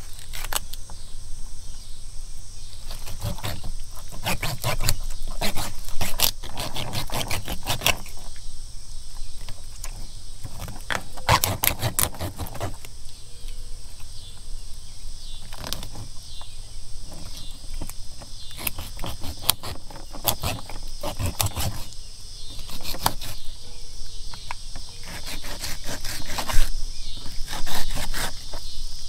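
Knife cutting and scraping as a catfish is filleted, in repeated runs of short scraping clicks. Behind it is the steady high drone of insects.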